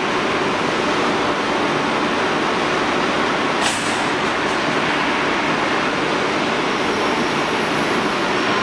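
Steady, even running noise from an automatic tank-shell assembly and spot welding machine line, with one brief sharp click-like sound a little over halfway through.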